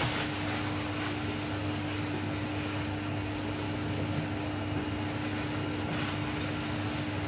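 Steady machine hum: a running motor with an even hiss and a constant low tone.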